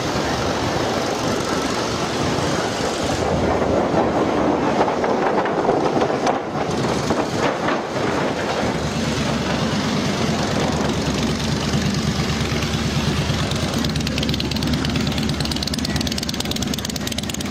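An engine running steadily, with a low even pulse that comes through more clearly from about halfway on.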